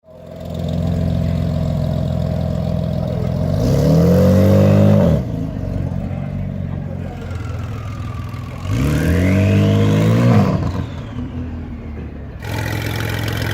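9ff Porsche Turbo R engine idling, then revved twice in short blips, its pitch rising and falling each time. A whistling tone rises with the second rev and falls away after it.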